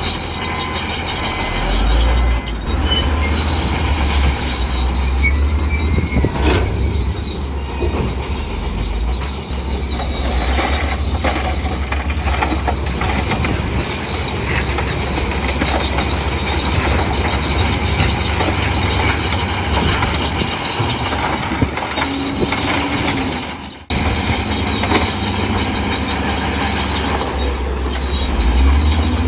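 Crawler bulldozer working under load: the diesel engine runs with a steady low drone while the steel tracks squeal and clank. The sound drops out for an instant about 24 seconds in.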